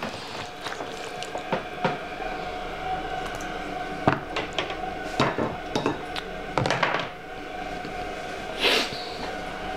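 A fork and a slotted serving spoon clinking and scraping against a ceramic dinner plate while pulling apart slow-cooked roast chicken and serving potatoes, in a string of separate knocks. A faint steady hum runs underneath.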